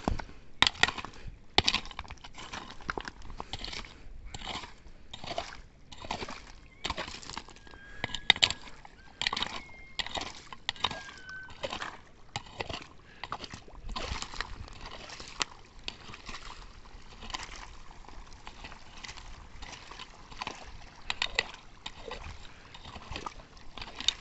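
A wooden-handled digging tool striking and scraping through stones and gravel in shallow muddy runoff, splashing and sloshing the water with irregular strokes about one or two a second, as it clears a channel to drain water off the road.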